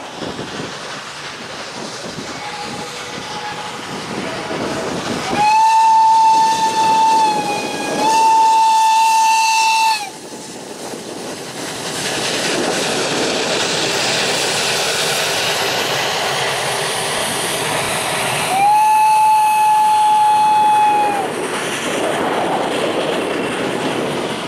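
Narrow-gauge steam locomotive U57.001 working past with a passenger train, its exhaust chuffing. Its steam whistle blows two long blasts about five seconds in and a third long blast some ten seconds later, while the coaches roll past with a steady rumble and clatter.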